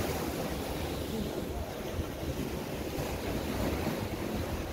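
Small ocean waves washing onto a sandy beach in a steady hiss, with wind buffeting the microphone in low rumbles.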